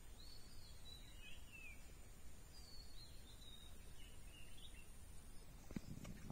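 Birds calling: short, sweeping chirps that come and go every second or so over a faint steady outdoor hum. Near the end, a couple of soft clicks.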